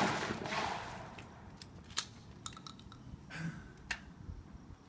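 A shotgun blast fades out and echoes away over the first second or so, followed by a few short, sharp clicks about two and four seconds in.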